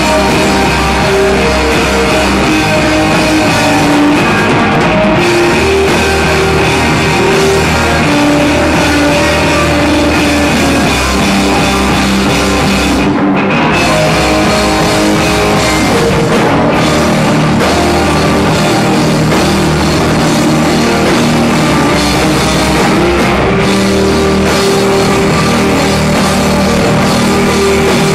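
Live punk/emo rock band playing loudly: distorted electric guitars, bass guitar and a drum kit, with a brief stop a little before halfway through.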